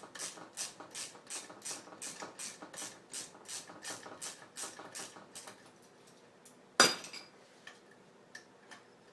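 Quick, even rasping strokes, about three a second, for about five seconds, then a single sharp metallic clink about seven seconds in, followed by a few light ticks.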